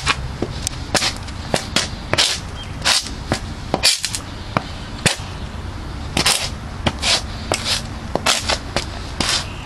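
Universal 'Rub It Crackle' friction-lit crackling firework going off underfoot in sharp, irregular cracks, a couple or more a second. The piece has broken apart, so it sets off only as scattered pops rather than a steady crackle.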